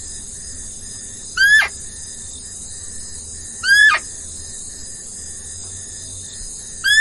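An animal's call, three short, high calls about two seconds apart, each rising briefly then dropping sharply in pitch, over a steady high chirring background.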